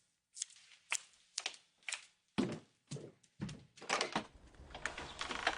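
Footsteps on a hard floor, about two steps a second, with clicks and a thunk of a front door being unlatched and opened near the end.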